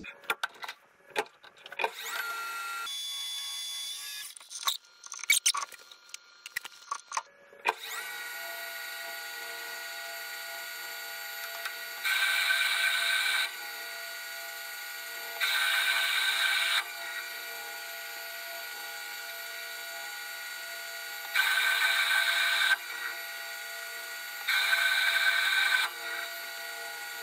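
Scattered clicks and handling sounds, then about eight seconds in a Precision Matthews PM-1440TL metal lathe runs with a steady gear hum. Four times it is broken by louder stretches of about a second and a half as the tool cuts into annealed 4140 steel, roughing down the outside diameter.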